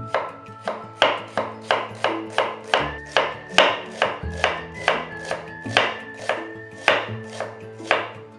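Kitchen knife finely dicing a raw onion on a wooden cutting board: a steady run of crisp chopping strokes, about three a second.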